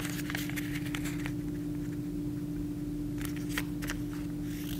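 A square sheet of origami paper rustling and crinkling as it is folded diagonally and creased, in a few short crackly clusters, over a steady low electrical hum.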